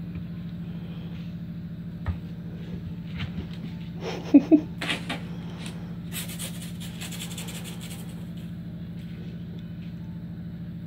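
A kitten's play with a feather toy on a wooden floor: a knock about two seconds in, two sharp thuds near the middle, then a few seconds of rustling, over a steady low hum.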